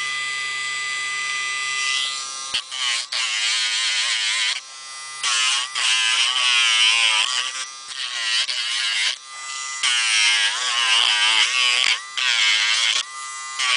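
Dremel rotary tool with a sanding drum grinding a dog's toenail. The small motor whines steadily for about two seconds, then the whine wavers up and down in pitch with a gritty sanding noise over several short passes separated by brief breaks.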